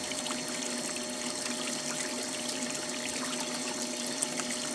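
Pump-fed water in an RCM quicksand gold concentrator welling up through the sand and trickling and splashing over its rim, with a steady hum underneath.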